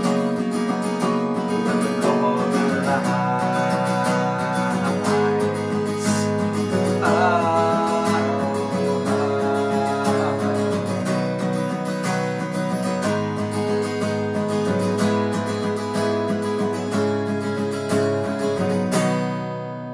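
Steel-string Taylor acoustic guitar strummed in an instrumental outro, ending on a final chord about 19 seconds in that is left to ring out and fade.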